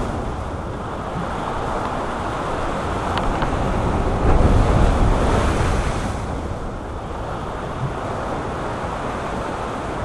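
Ocean surf breaking and washing over the rocks of a jetty, with wind buffeting the microphone; the wash swells up about four seconds in and eases off again.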